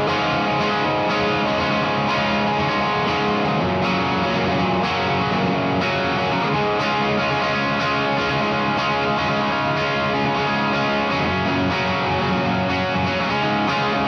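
Electric guitar with P-90 pickups strumming overdriven chords through a Satellite Neutron tube amp whose phase inverter is a JJ 12AT7 (ECC81) in place of the usual 12AX7.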